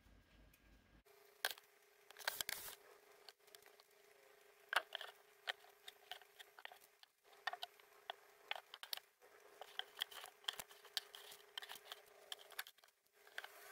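Fingers digging and raking through loose sawdust beetle bedding in a plastic rearing container: a run of dry rustles, scratches and small crackles.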